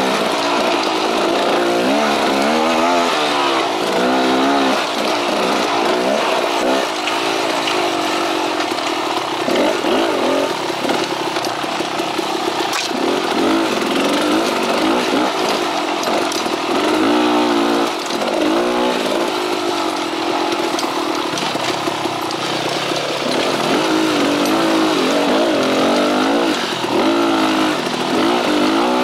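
Beta Xtrainer two-stroke dirt bike engine being ridden, its revs rising and falling every second or two as the throttle is worked.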